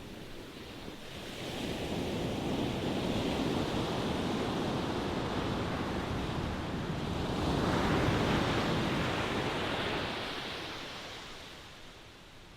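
Ocean surf washing ashore: a wave swells in about a second and a half in, a second, stronger surge comes around the middle, and then the water draws back and fades near the end.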